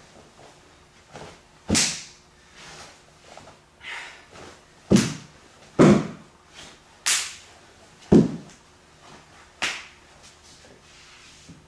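Six sharp, whip-like cracks at uneven intervals from a karate kata's strikes: the gi snapping and hands slapping as each technique lands. Some of the cracks have a dull thump underneath.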